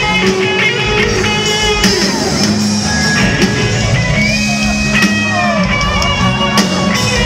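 Live rock band playing an instrumental passage, a guitar carrying long held melody notes over a dense, steady backing.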